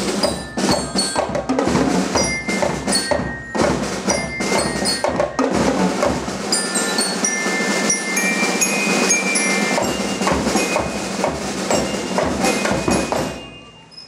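Drum band playing: snare drums and bass drums beating a rhythm under a melody of short, high, bell-like notes. The bass drum drops out about halfway, and the playing stops shortly before the end.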